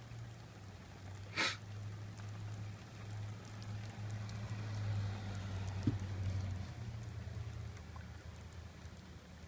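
Rain falling and dripping onto surfaces over a steady low hum, with one sharp tap about a second and a half in and a gentle swell of noise a few seconds later.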